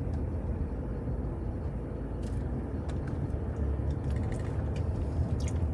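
A car heard from inside the cabin: a steady low rumble of engine and road noise, with a few faint clicks in the second half.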